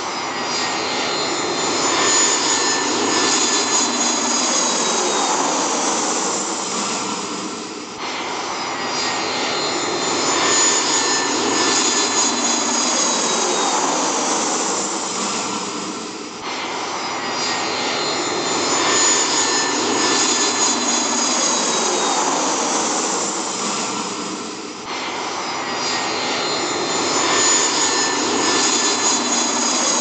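Jet aircraft engine noise, a loud steady rush with a whine that falls in pitch. The same stretch of sound repeats as a loop about every eight seconds, dipping briefly at each restart.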